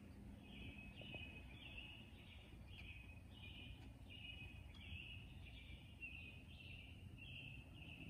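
Faint outdoor ambience: an unseen animal chirping, a steady series of short, high, buzzy calls about two a second, over a low background rumble.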